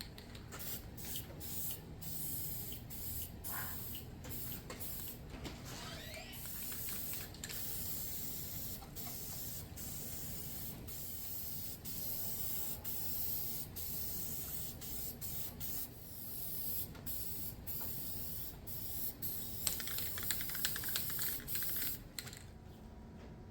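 Aerosol spray paint can hissing in a long series of bursts with short breaks between, from a can that is nearly empty. The spraying stops about a second before the end.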